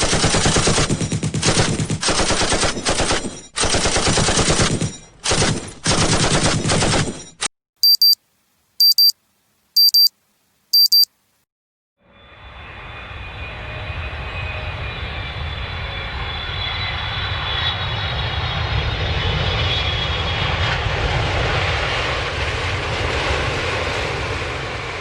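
Gun battle sound effect: rapid machine-gun fire in bursts for about seven seconds. Then an alarm clock beeps four times, about a second apart. Then an airplane landing: engine noise fades in and builds steadily, with a high whine over it.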